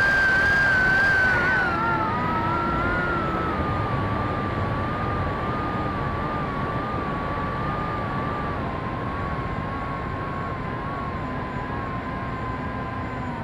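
A small RC flying wing's electric motor and propeller whining in flight, with wind rushing over the onboard microphone. The whine drops in pitch about two seconds in as the throttle eases, then sinks slowly lower.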